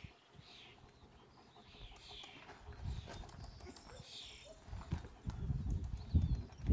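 A German shepherd panting, with low gusts of wind rumbling on the microphone that get louder in the second half.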